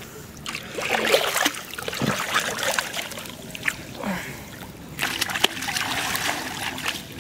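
Hands splashing and sloshing in shallow flood water, in two spells of splashing: one starting about half a second in, the other about five seconds in.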